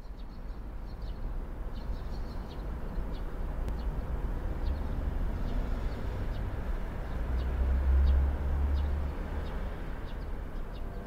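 Outdoor ambience: a steady low rumble that swells about two-thirds of the way through, with faint, scattered bird chirps above it.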